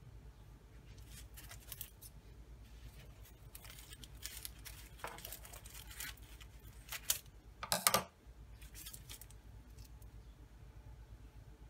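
Crisp baked envelope pastries crackling and tearing as one is pulled from the tray and broken open, with parchment paper rustling: a run of short, dry crackles, loudest about two-thirds of the way in.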